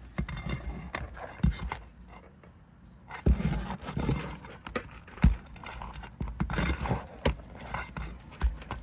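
Irregular knocks and scrapes of a flat bar working against asphalt roof shingles as leftover roofing nails are pried out, with a few sharper clacks among them.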